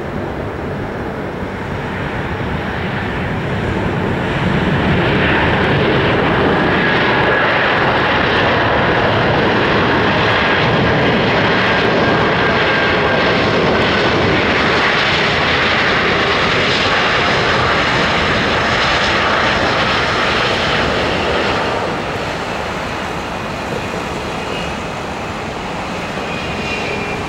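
Airbus A320 jet engines running during the landing rollout after touchdown: a loud roar that swells about four seconds in, holds, then eases about five seconds before the end, with a high whine falling in pitch near the end.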